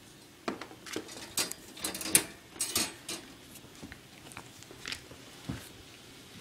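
Pink wire dog crate rattling and clinking in a quick, irregular run of sharp metal clicks, busiest in the first three seconds, then a few scattered taps.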